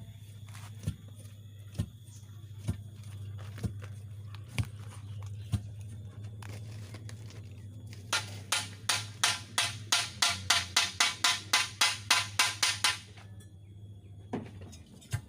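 A series of sharp knocks, about one a second, over a steady low hum, then a fast run of about four strikes a second for some five seconds, and two more single knocks near the end.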